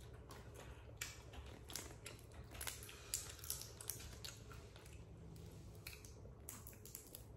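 Boiled crawfish being peeled by hand: quiet, irregular cracks and crackles of shell breaking apart, thickest through the first half, with some wet chewing.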